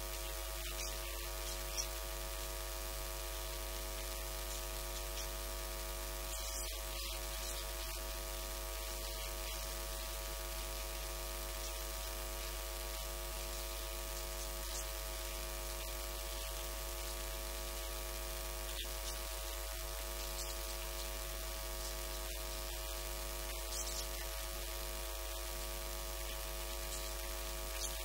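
Steady electrical mains hum and buzz with a faint hiss and the odd light crackle.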